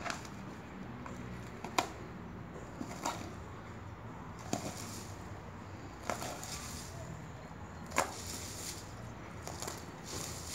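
German Shepherd dog chewing and tearing at a dried palm frond: irregular sharp cracks and crunches of dry plant material, one every second or so, the loudest about eight seconds in.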